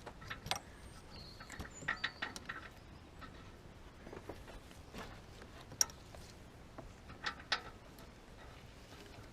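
Scattered light clicks, taps and small metallic knocks of hand work while a new oxygen sensor is fitted to the car.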